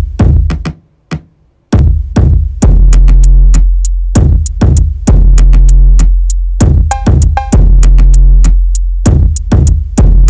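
Electronic music with a drum-machine beat and heavy bass. The beat cuts out briefly about a second in, then comes back in.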